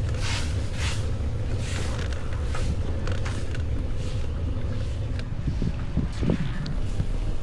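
Wind rumbling on the microphone while riding a bicycle, with a steady hiss of tyres on the road and a few light clicks.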